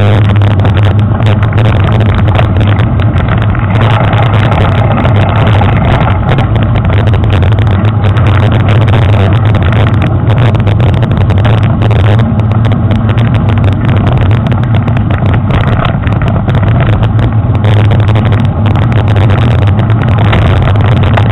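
Steady loud rumble of wind and trail vibration picked up by a handlebar-mounted action camera in a waterproof housing as a mountain bike rolls over a dirt trail, with a constant low drone underneath.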